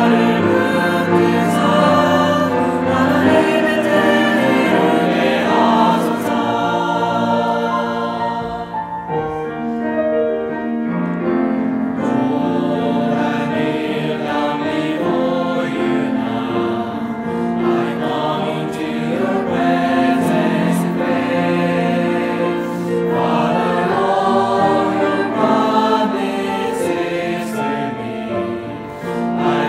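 Mixed choir singing a Korean worship song in parts, with piano accompaniment. The sound thins briefly about a third of the way in, then the next verse begins.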